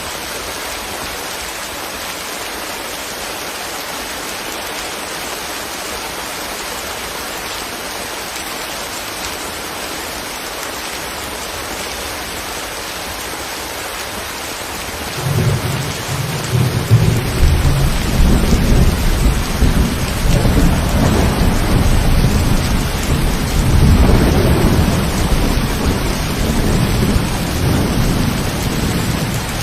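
Steady heavy rain hissing, then about halfway through a deep rumble of thunder sets in suddenly and rolls on, swelling and fading, louder than the rain.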